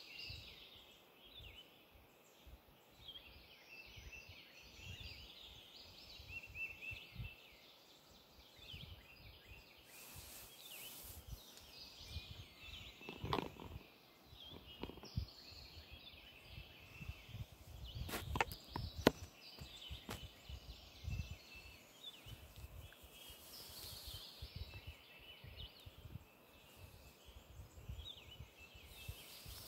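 Morning chorus of several birds calling and singing from the trees, many short chirps overlapping throughout. A few sharp knocks come about halfway through and again a few seconds later, over a low rumble.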